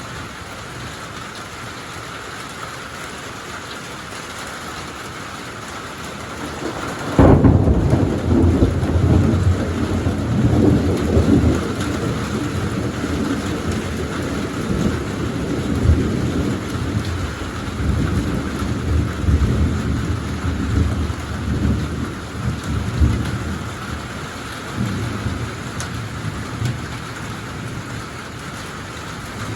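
Steady rain falling, then a sharp, loud thunderclap about seven seconds in that rumbles on in waves for some fifteen seconds before dying away.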